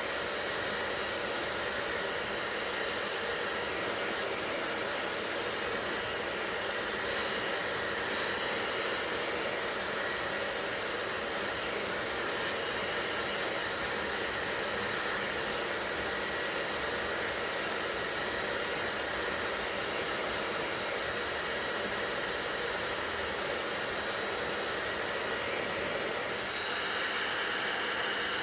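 Handheld hair dryer running steadily: an even rush of blown air with a faint steady whine, slightly louder near the end.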